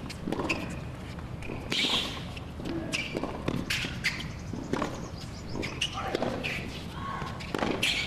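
Tennis rally on a hard court: sharp racket strikes on the ball roughly a second apart, with ball bounces and players' footwork and grunts between them.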